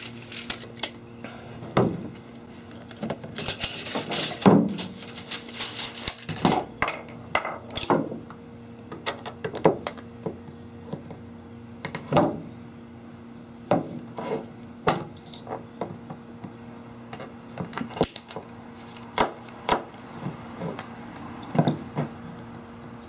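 Irregular knocks, clicks and rubbing as PVC pipe and hand tools are handled and a length of pipe is worked on, with a rougher scraping stretch a few seconds in, over a faint steady hum.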